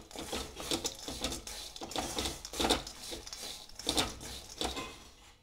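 Peanuts being stirred with a spatula in a pan, the nuts rattling and scraping against the pan in quick, irregular strokes as they keep roasting on the remaining heat after the gas is turned off.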